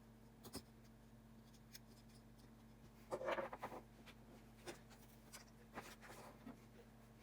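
Small handling sounds during a phone display repair: a few light clicks, and a brief rustling scrape about three seconds in.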